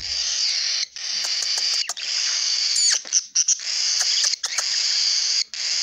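Budgerigar warbling close to the microphone: a continuous scratchy chatter broken by short pauses, with a few quick chirps and clicks about three seconds in.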